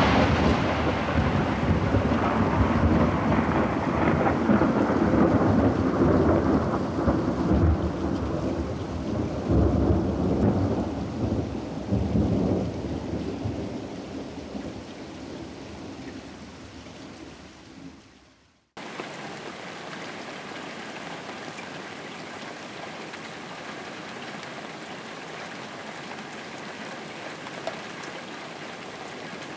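A thunderclap rumbling over heavy rain, rolling on and slowly fading for most of the first twenty seconds. It then cuts off abruptly, leaving a steady hiss of rain alone.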